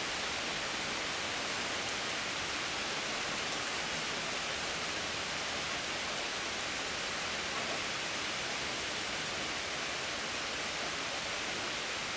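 Rain falling steadily: a constant, even hiss with no let-up.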